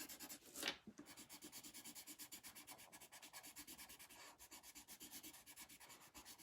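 Coloured pencil shading lightly on paper: faint, quick, even back-and-forth strokes, several a second, with one louder scrape about a second in.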